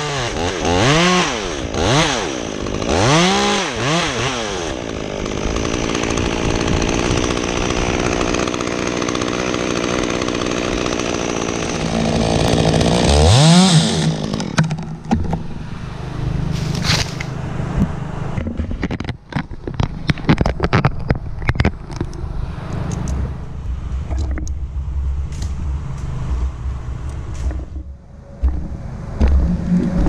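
Chainsaw revved up and down a few times, then held at full throttle for about eight seconds as it cuts dead ash wood, before dropping back sharply. The saw then runs low amid a string of irregular cracks and knocks.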